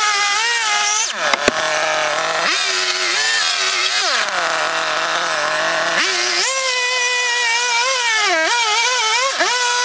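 Two-stroke chainsaw cutting into a log, the engine at high revs and dipping under load. It drops to a low idle for about two seconds around the middle, then revs up again and cuts on.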